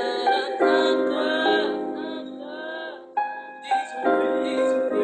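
Rap song intro: a piano beat under a sung vocal melody of drawn-out, gliding notes.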